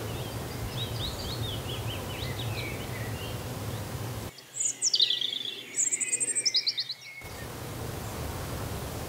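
A small songbird singing over a steady low background noise: first a faint run of descending notes, then, from a little before the middle, a louder, clearer phrase of high sweeping notes and a rapid trill. The background noise cuts out abruptly while this phrase plays and returns after about three seconds.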